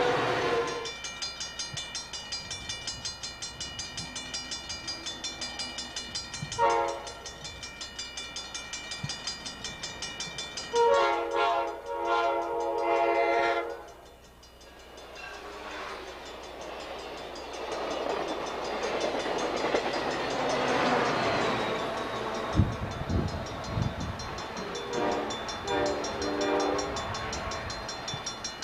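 Amtrak San Diegan trains at a grade crossing. A crossing bell rings about three times a second while an F40PH locomotive's K5LA air horn sounds a brief chord about 7 s in and a longer one from about 11 s. Later a passing train's rumble builds, and another horn sounds in short blasts near the end.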